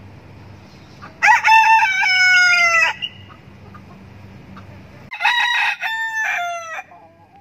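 Two rooster crows, each about two seconds long and a couple of seconds apart, each drawn out and sliding down in pitch at its end.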